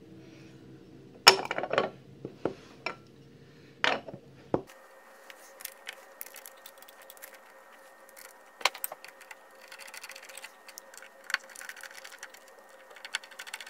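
Sharp clicks and light metallic clatter as the cast metal lid of a three-phase electric motor's terminal box is handled, set in place and fastened down. After about four and a half seconds a faint steady hum comes in under scattered lighter ticks.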